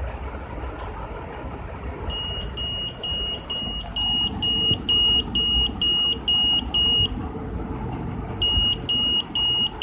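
Piezo buzzer of an Arduino PIR motion alarm beeping in a rapid repeated high-pitched tone, about two and a half beeps a second, the alarm sounding for motion detected. It starts about two seconds in, pauses for about a second and a half, then starts beeping again.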